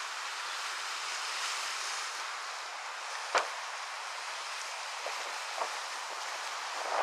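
Wind and choppy waves on a large lake, a steady rushing hiss, with a sharp click a little past the middle and a fainter one later.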